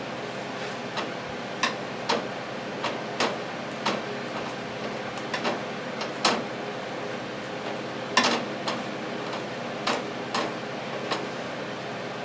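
Microwave oven running with a steady hum while bacon inside spatters, giving sharp irregular pops and crackles every second or so.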